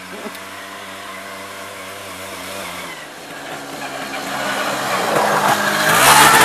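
Honda Odyssey buggy's engine running as it drives toward and up close, getting steadily louder from about halfway through.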